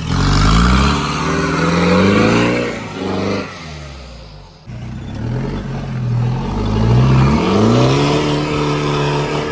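Off-road 4x4's engine revving hard under load. Its pitch climbs over the first two or three seconds and falls away. After an abrupt jump about halfway through, it climbs again and holds high near the end.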